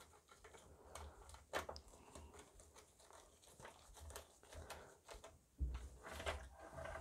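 Faint handling noise of gloved hands working on a small metal electronics case and its wiring: scattered light clicks and rustles, with a sharper click about a second and a half in and a dull knock followed by clicks about six seconds in.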